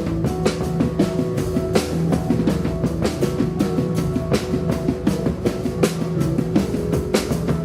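Live rock band playing, with a busy drum kit of kick, snare and cymbal strikes driving over steady held pitched notes.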